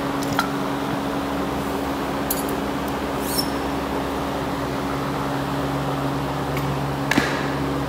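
Steady mechanical hum with a few light clicks and knocks as bumper plates on a loaded barbell are handled; one click about three and a half seconds in rings briefly like metal, and the sharpest knock comes near the end.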